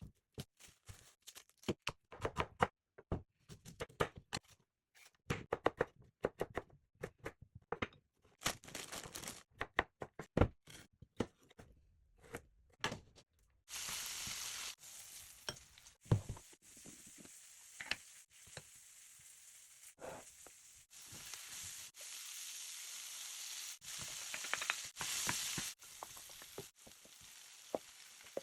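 Kitchen prep: a run of short knocks and clatter for the first half. Then, about halfway, food starts sizzling steadily in a hot frying pan, with occasional clicks of stirring as the kimchi fried rice cooks.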